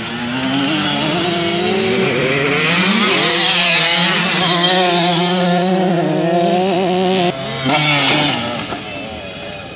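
Motocross dirt bike engine accelerating hard, its pitch climbing over the first few seconds and then held high. About seven seconds in the rider backs off sharply, gives a short blip of throttle, and the engine note falls away.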